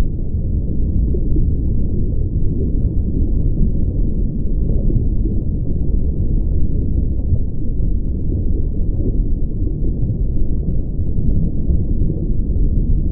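A steady, deep, muffled rumble with no distinct events. It has nothing in the upper range and does not change throughout.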